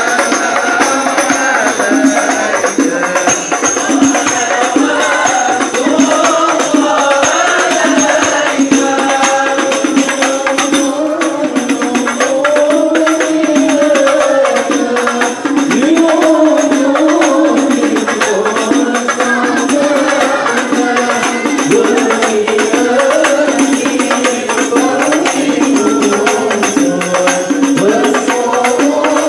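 A group of men singing Islamic devotional chant (sholawat) together, accompanied by steady frame-drum (rebana) beating.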